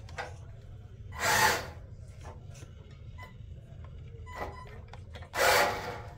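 Small RC car's tyres scrubbing and skidding on a vinyl floor as it turns and spins: two short rasping bursts about four seconds apart, with a few light ticks between them over a faint low hum.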